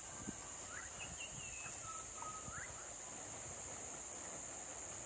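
Steady high-pitched insect drone, with a few short whistled bird calls in the first three seconds.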